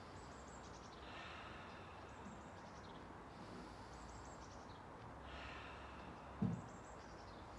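Faint breathing through the nose while a yoga pose is held: a few slow breaths, each under a second. About six and a half seconds in there is one short low sound.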